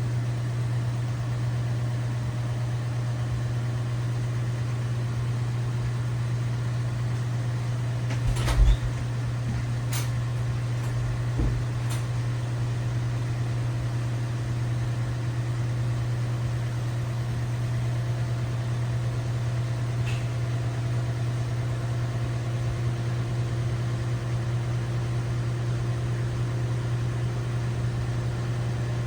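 LG WT7600HVA top-load washing machine running with a steady low hum. There is a single knock about eight seconds in and a few faint clicks after it.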